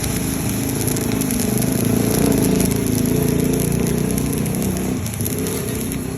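Stick welding with a 3.2 mm electrode on a Kimmie three-board inverter welder: the arc crackles and sizzles steadily, with a short dip about five seconds in.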